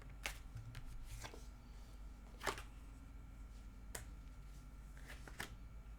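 Faint, scattered light clicks and rustles of small objects being handled, the loudest about two and a half seconds in, over a low steady hum.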